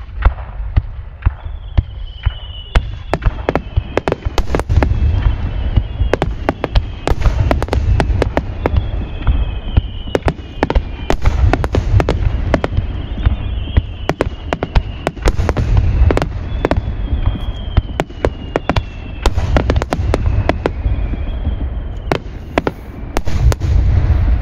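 Aerial fireworks barrage: rapid, overlapping bangs and cracks of bursting shells over a continuous low rumble, with whistling shells giving slowly falling whistles again and again.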